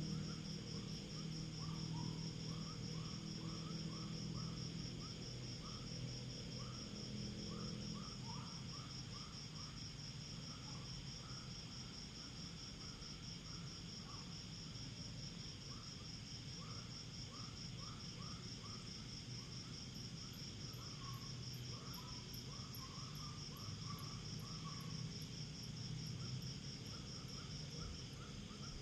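Night insects, crickets, trilling in a steady fast pulse, with a second, lower call chirping in short repeated groups. A low hum underneath fades out about eight seconds in.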